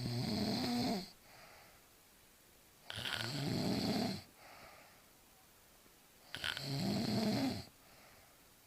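A woman snoring heavily in her sleep: three loud snores about three seconds apart, each followed by a softer breath out.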